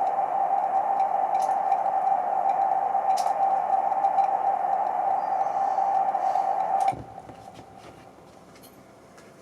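Electronic noise from an audio mixer: a steady, narrow band of hiss in the middle range that cuts off suddenly about seven seconds in, leaving only faint clicks.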